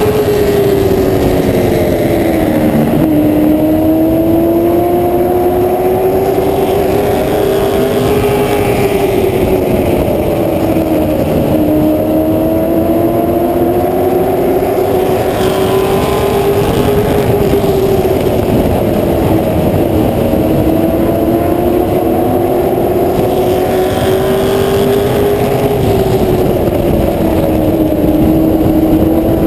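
Charger-class short-track race car's engine running hard at race pace, its pitch climbing along each straight and falling off into each corner about every eight to nine seconds, heard from the car's roof.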